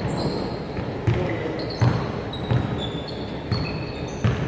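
A basketball bouncing on a hardwood gym floor, about six thuds at irregular intervals, with short high sneaker squeaks on the court in between.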